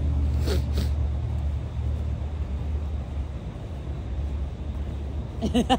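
Low, steady rumble of a motor vehicle, which grows fainter after about two seconds.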